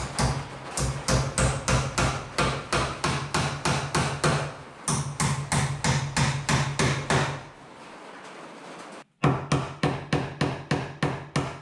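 Hammer driving the nails of blue plastic electrical boxes into wooden wall studs: a run of quick, even blows about three a second, a pause, then another run of blows from about nine seconds in.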